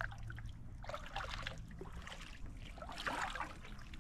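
Kayak paddle strokes dipping into the lake, with water trickling off the blades: two louder splashy strokes about two seconds apart, over a low steady rumble.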